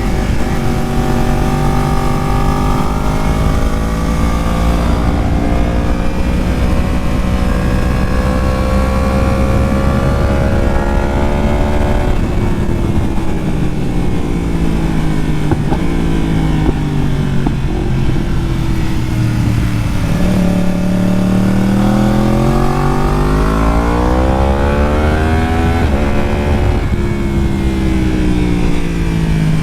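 Yamaha R1's inline-four engine running, its pitch climbing slowly under gentle throttle, dropping off about twelve seconds in, then rising steeply again after twenty seconds before falling as the throttle closes.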